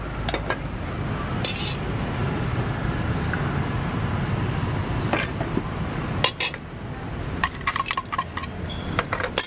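A metal ladle and a white ceramic bowl clinking and knocking against a metal wok, over a steady low rumble. There are a few sharp knocks about six seconds in and a run of quick clinks near the end, as the pork is tipped from the bowl into the wok.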